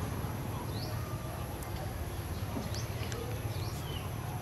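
Outdoor background: a steady low rumble with a few short, high chirps over it, scattered through the middle and later part.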